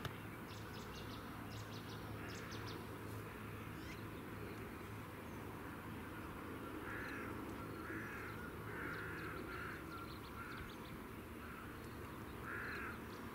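A crow cawing in a series of short calls, about one a second from the middle of the stretch on, with two more near the end. Faint high bird chirps come in the first few seconds, over a steady low outdoor background.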